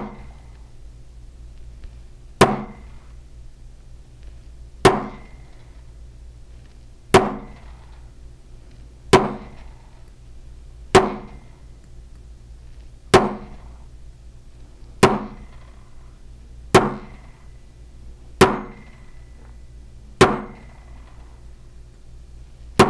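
A brass mallet striking a steel design stamp on a copper disc resting on a metal bench block: about a dozen single sharp metal strikes, roughly every two seconds, each with a short ring. Each strike sets one spiral impression, and the stamp is moved between strikes to build a border around the disc.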